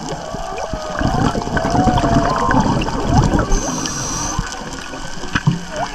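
Whale song heard underwater: long, wavering calls that glide up and down in pitch. Through the middle a louder bubbling, gurgling water noise runs underneath them.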